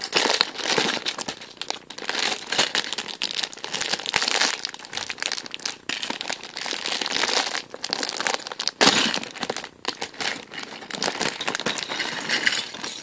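Crinkling of a thin clear plastic LEGO parts bag, handled and shaken as the bricks are emptied out of it.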